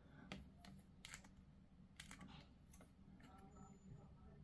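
Near silence with a few faint, light clicks and taps of small plastic miniature parts being handled.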